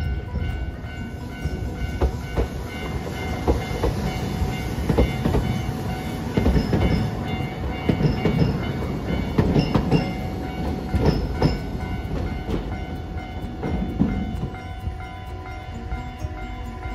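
Hiroden 3950-series 'Green Liner' articulated tram passing close by, its wheels knocking over rail joints and points in an irregular series of clicks, densest in the middle of the pass and thinning out as it moves away.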